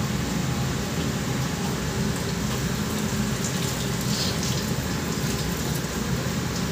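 Water running from a stainless-steel sink tap, a steady splashing rush with a few faint clicks about four seconds in, over a steady low hum.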